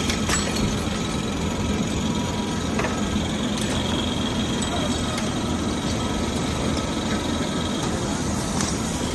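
Tannoban hydraulic lathe for bearing rings running steadily, a continuous machine hum and noise with a few faint clicks.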